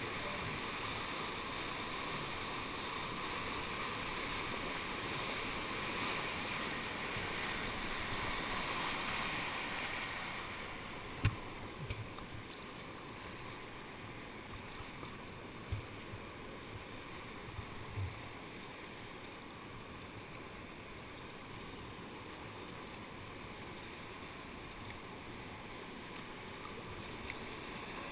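Churning whitewater of a creek rapid's hole rushing steadily, heard from a kayak in it. It turns a little quieter about eleven seconds in, with a few dull knocks around then and a little later.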